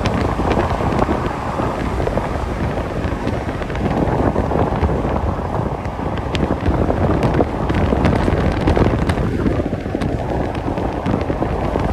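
Steady low rumble of road and wind noise from a truck driving at highway speed.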